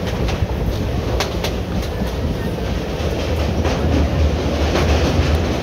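ICF passenger coach of the Tapovan Express running along the track: a steady low rumble with scattered sharp clicks from the wheels.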